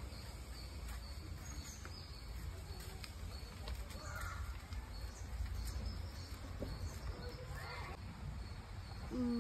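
Outdoor ambience among garden trees: a low steady rumble of wind and handling noise, with faint scattered bird chirps and thin insect tones above it.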